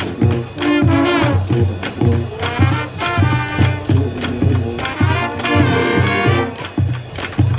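High school marching band playing: brass section (trumpets and trombones) carrying the tune over a steady, pounding drum beat.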